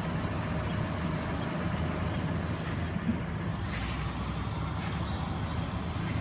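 JCB Fastrac 4220 tractor's diesel engine running steadily under way, a continuous low drone heard from the cab.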